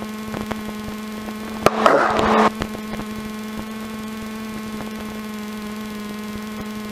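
Cabin noise of a Robin DR400 light aircraft in a glide with its piston engine throttled back: a steady drone with a constant hum. A brief, louder burst of sound about two seconds in.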